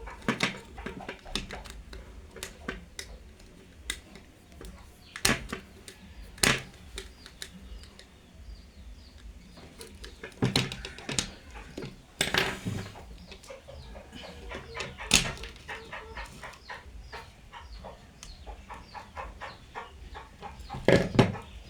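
Scattered sharp clicks and knocks from handling cable and switch fittings during wiring, with chickens clucking in the background.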